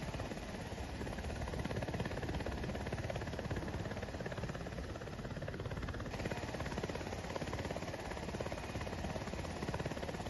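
A military Black Hawk helicopter running on the ground: steady engine and rotor noise with a fast, even pulsing, shifting slightly in tone about six seconds in.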